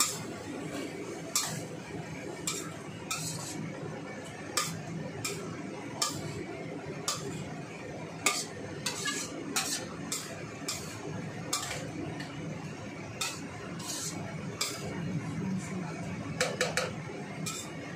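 Spatula stirring and tossing stir-fry in a stainless steel wok: irregular clinks and scrapes of utensil on pan every second or so, with a quick run of clinks near the end, over a steady background hiss.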